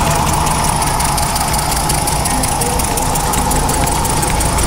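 Small hand-built model steam engines running on compressed air: a steady, fast mechanical ticking over a hiss and a low hum.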